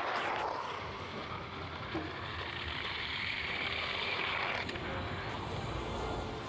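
Ski jumper's skis hissing down the icy in-run track of a large ski jump, building steadily and then cutting off suddenly about four and a half seconds in.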